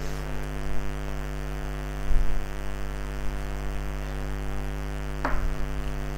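Steady electrical mains hum in the recording, with a short low thump about two seconds in and a brief sound a little after five seconds.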